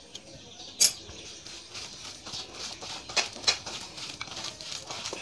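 A hand squishing and kneading a mashed-potato and chopped-vegetable filling in a bowl: soft, wet patting with small clicks. One sharp knock comes about a second in.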